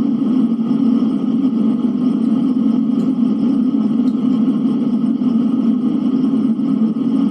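Steady blizzard wind, an even rushing noise that holds at one level without distinct gusts.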